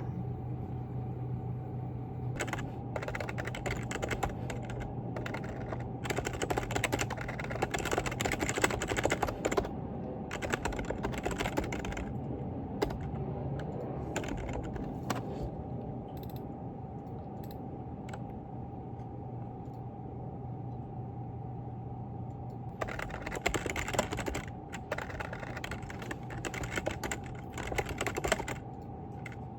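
Typing on a computer keyboard: two long runs of rapid keystrokes with a quieter stretch of only occasional keys between them, over a steady hum.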